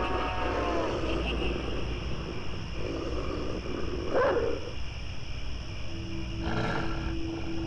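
Spooky forest sound-effect ambience: a steady low drone under gliding, animal-like cries, with a short sharp cry about four seconds in and a held tone joining about six seconds in.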